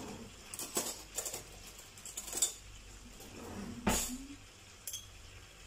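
Small glass jar being handled and a metal spoon scooping from it: a few light, separate clicks and clinks of spoon and lid against glass, the sharpest about four seconds in.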